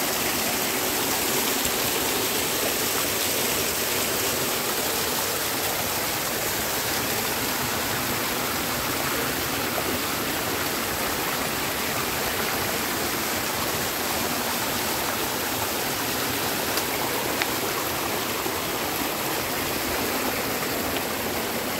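Hot-spring stream rushing steadily, an even wash of water noise.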